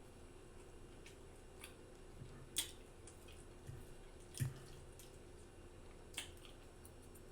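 Faint, wet mouth smacks while eating: about five sharp separate smacks a second or two apart, the loudest about two and a half and four and a half seconds in.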